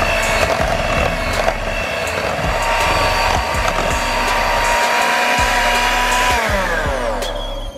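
Electric hand mixer running steadily as its beaters churn thick batter. Near the end it is switched off and the motor whine falls in pitch as it spins down.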